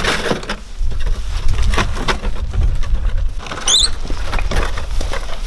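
Metal wheelbarrow being worked and pushed over paving stones: irregular scrapes, knocks and rattles over a steady low rumble. A brief run of high rising chirps about two-thirds of the way through.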